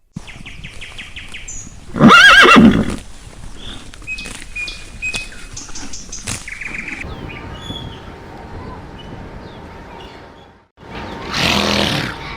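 Horse whinnying: one loud neigh about two seconds in that rises and then falls away, and another loud call near the end.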